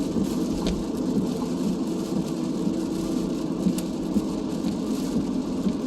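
Road noise inside a car driving on a wet highway in rain: a steady low drone of engine and tyres with a hiss of rain and spray, and a few faint clicks.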